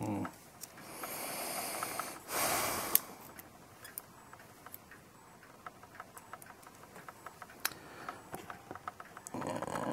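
Light clicks and taps of brass clock-movement parts and a metal pivot-locator tool being handled while the movement is reassembled. Two louder hissing rushes come about one and two and a half seconds in, the second ending in a sharp click.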